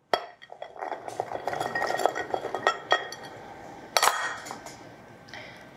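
Soaked chickpeas and white beans poured from a glass bowl into a clay dizi pot, a dense clatter of small clicks and clinks. About four seconds in comes one sharp clink of glass knocking against the dishes.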